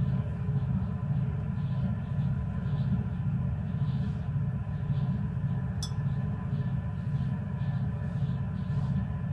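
Steady low background rumble. About six seconds in, a single light clink of a glass test tube against the glass beaker of a water bath.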